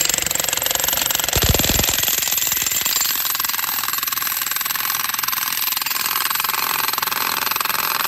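Jackhammer running steadily, its rapid hammering breaking up the rock wall, with a brief deeper thudding about a second and a half in.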